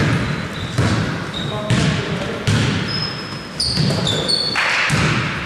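Basketball dribbled on an indoor court, about one bounce every 0.8 seconds, each with a short echo, and a few high shoe squeaks on the floor about four seconds in.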